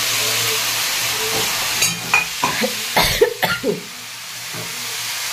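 Drumstick (moringa pod) vegetables frying in oil in a metal kadhai, with a steady sizzle. About two seconds in, a quick run of scrapes and knocks as the spatula stirs against the pan, after which the sizzle eases and then builds again.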